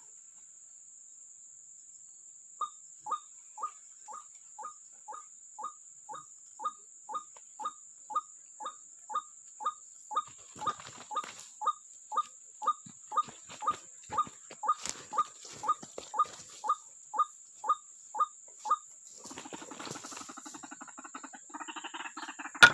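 White-breasted waterhen (ruak-ruak) calling: a steady series of about thirty short, falling notes, roughly two a second, that stops after about sixteen seconds. Faint rustling follows, and one sharp click comes near the end.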